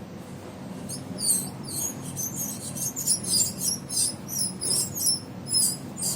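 Air cooler motor running with a steady low hum while its worn ball bearing squeals in a quick, irregular series of high-pitched squeaks starting about a second in: the noise of a ball bearing in very bad condition.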